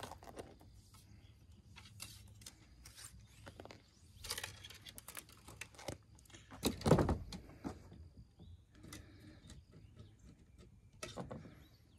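Handling noises from gun-cleaning gear: scattered clicks, light taps and crinkly rustling, with one louder knock about seven seconds in.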